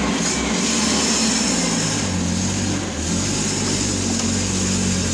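A small truck's engine running steadily at idle: a constant low hum.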